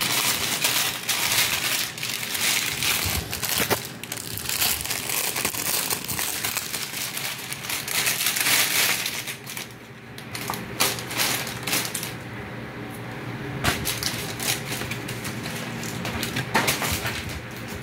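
Clear plastic clothing bags crinkling and rustling on and off as they are handled and opened.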